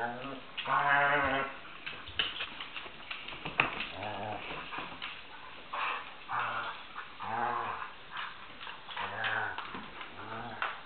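Two dogs, one a flat-coated retriever puppy, growling in play during a tug-of-war over a plush duck toy: about seven short growls, the longest about a second in, with claws and paws clicking and scuffing on a hardwood floor between them.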